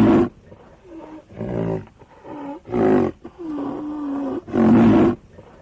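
Rhinoceros calling: a series of loud pitched calls, the strongest right at the start, about three seconds in and near the end, with a longer held call of about a second in between.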